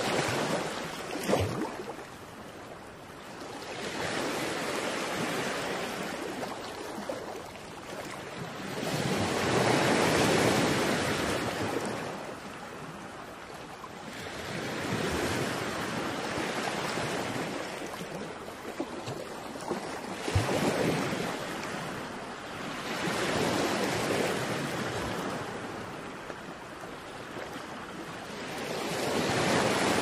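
Waves breaking and washing ashore, the surf swelling and fading every few seconds.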